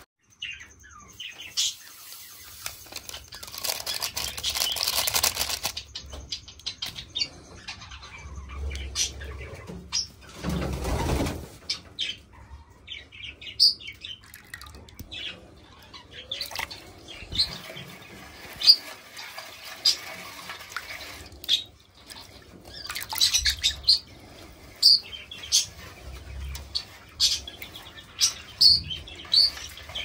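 Cage birds chirping again and again in short high calls, thickest near the end. A plastic packet rustles a few seconds in, and water sloshes in a metal bucket about ten seconds in as it is mixed by hand.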